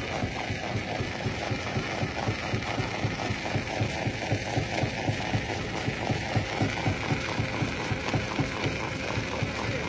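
Jaw-type stone crusher running, a fast, even rhythm of low mechanical thumps.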